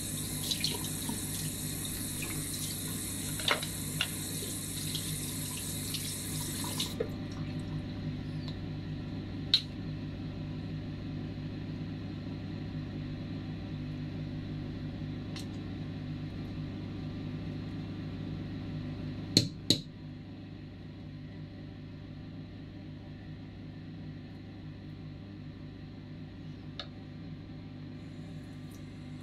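Water running from a tap into a sink, with a few small clicks and two sharp knocks close together about two-thirds of the way through, after which the sound is quieter.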